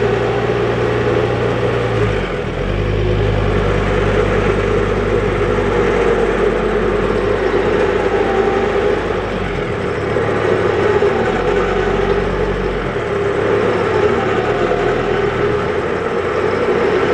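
Ford Ranger engine running steadily at low revs under load, its deep note shifting a few times as the ute creeps forward through mud towing a heavy caravan while being winched. A steady mid-pitched whine runs over the engine throughout.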